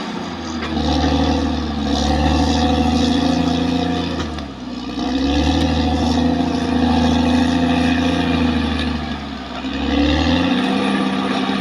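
Caterpillar D6R XL bulldozer's diesel engine running under load as it works, its pitch dipping briefly and picking up again about four to five seconds in, then changing again near the end.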